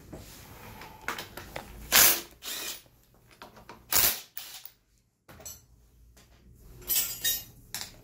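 Cordless impact driver running in several short bursts, the loudest about two and four seconds in, as it undoes the front brake caliper bolts on a motorcycle fork.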